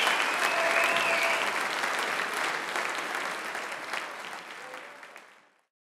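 Audience applauding, a dense patter of many hands clapping that fades away over about five seconds into silence.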